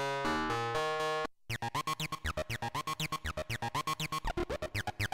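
NX-Synth One software synthesizer playing presets from a MIDI sequence. First comes a sustained chordal lead. After a short break about a second and a half in, a 303-style acid sound follows, chopped by the trance gate into rapid pulses, about eight a second, each with a quick falling sweep.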